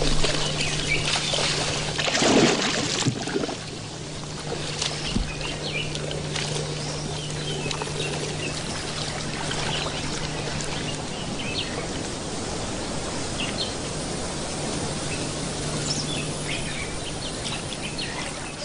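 Water splashing and sloshing around a mating pair of crocodiles in the shallows, heaviest in the first three seconds and then settling into steady lapping. Birds chirp now and then in the background.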